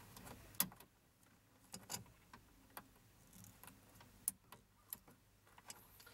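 Faint, scattered sharp clicks and ticks, about ten at irregular intervals, from handling small plastic T-tap wire connectors and the wiring behind the dash.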